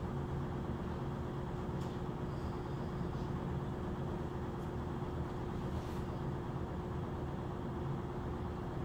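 Steady mechanical hum with a constant mid-pitched tone, unchanging throughout, with a couple of faint clicks.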